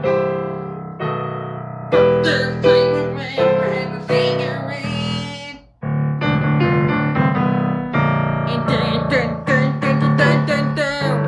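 Electric piano or keyboard playing a song in repeated struck chords, with a brief break about six seconds in.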